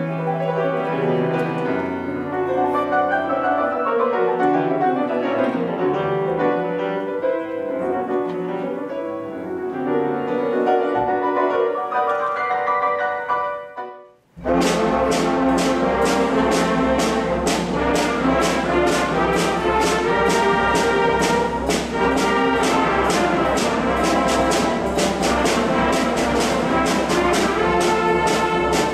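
Grand piano played solo for the first half. After a brief break about halfway through, a large student concert band of brass, saxophones and percussion plays with a steady beat.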